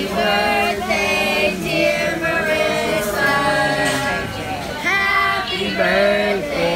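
A group of men and women singing together without accompaniment, a further birthday song sung to long held notes that slide from one pitch to the next.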